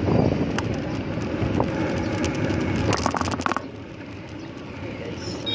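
Wind buffeting the microphone with street and traffic noise while riding a bicycle. About three seconds in there is a brief burst of rattling crackle, and after it the noise drops off and is quieter.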